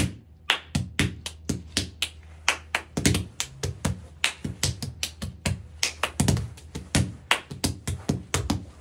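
Hands patting and slapping a fake pregnancy belly: quick, uneven taps, several a second, over a faint low hum.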